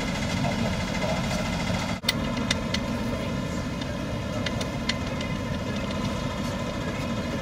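A ship's engine running steadily, heard on deck as a constant hum with a low rumble. After a brief break about two seconds in, a few sharp clicks or knocks sound over it.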